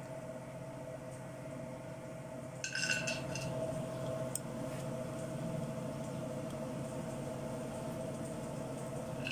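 Chopped nuts tipped into a metal frying pan about three seconds in: a brief clatter of clinks and rattles, then a single small click a little later, over a steady background hum.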